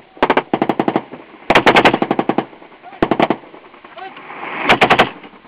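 Automatic gunfire in short bursts of rapid shots: a burst at the start, a longer one about a second and a half in, another around three seconds, and a last one near the end.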